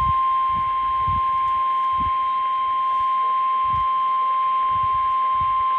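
NOAA Weather Radio 1050 Hz warning alarm tone: one steady, unbroken beep held throughout, heard through a radio receiver with a light static hiss. It is the weekly test of the tone that switches on weather alert receivers.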